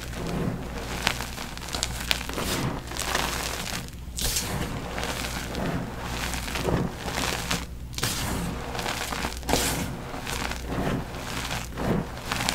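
Dyed NEXO gym chalk being crushed and crumbled, a run of crunches with a dry powdery crackle, roughly one a second.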